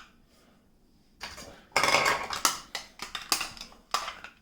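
Hard plastic Lego Duplo bath-toy pieces clattering and knocking together as they are handled, starting about a second in, with a cluster of loud clacks in the middle and a few more near the end.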